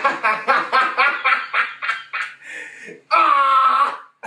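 A man laughing: a rapid run of pitched ha-ha pulses, about five a second, fading out after about two seconds, then a single drawn-out high cry lasting about a second near the end.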